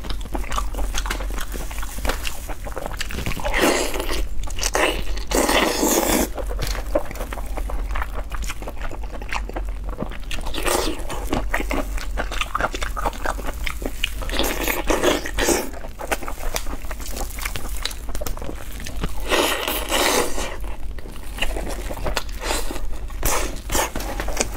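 Close-miked eating sounds of a person chewing roast chicken: mouth and chewing noises with roast-chicken meat and skin being torn apart, in louder stretches every few seconds.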